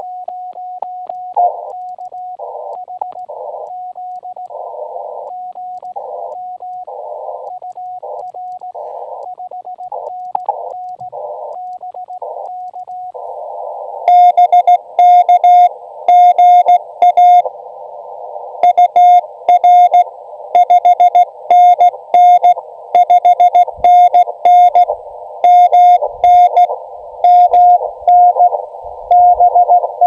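Elecraft KX2 transceiver audio in CW mode. For the first half there is receiver hiss through a narrow CW filter, with a steady tone and another station's Morse code keying in and out. About fourteen seconds in, the radio's loud, harsh sidetone takes over as Morse code is sent by hand on the paddle.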